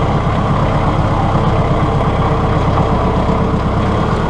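Compact tractor engine running steadily as the tractor drives with its front loader raised.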